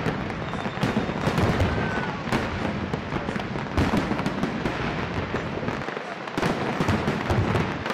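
Aerial fireworks going off in quick succession: a dense run of bangs and crackles with no break.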